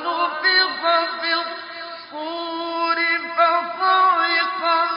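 A man reciting the Quran in a slow, melodic chant, drawing out long notes and bending their pitch.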